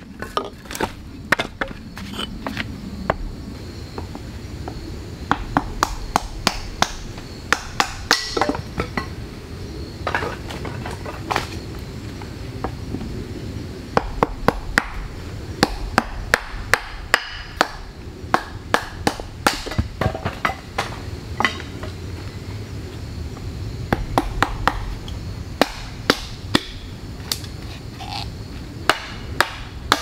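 Hatchet chopping and splitting firewood on a chopping block: sharp wooden chops, often several in quick succession, with short pauses between the bursts.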